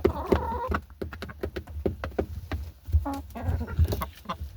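Chickens clucking a few times among a scatter of sharp clicks and taps as the flock eats grain feed.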